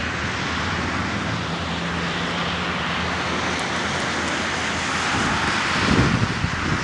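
Steady outdoor rushing noise with a low hum under it, like distant traffic or wind on the microphone; a faint low drone joins in for a couple of seconds about a second in.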